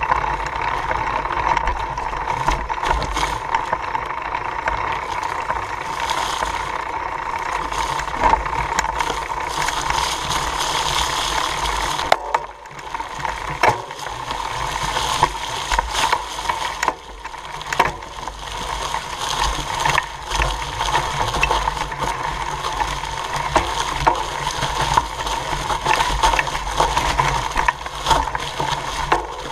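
Mountain bike ridden over dry leaves on a dirt trail, heard through a camera mounted on the frame: tyres crunching through the leaves, the chain and frame rattling, and sharp knocks over bumps. It goes briefly quieter a little under halfway through.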